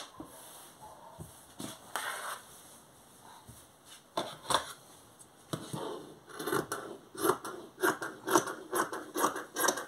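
Fabric rustling as it is smoothed by hand on a table, then, from about halfway, scissors cutting through the cloth in a steady run of snips, about three a second.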